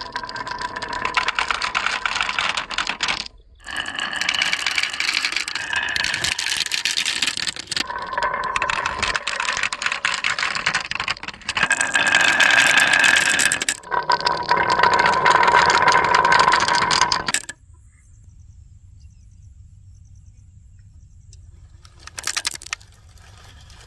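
Marbles rolling and clattering down a wooden HABA marble run, with a ringing rolling tone, in several stretches that cut off abruptly. After about seventeen seconds it drops to a faint low hum, with one brief clatter near the end.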